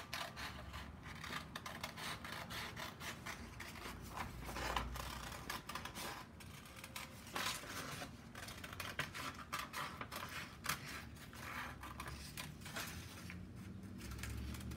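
Scissors snipping through a sheet of paper in many short, irregular cuts, with the paper rustling as it is turned.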